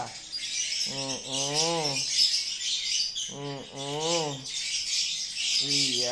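Small birds chirping continuously. Three drawn-out low voice sounds, each about a second long, rise and then fall in pitch.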